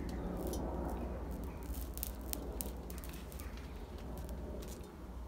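Horsehair crackling as it burns on the surface of a hot raku-fired pot: many small irregular ticks and pops, over a low steady rumble that eases off toward the end.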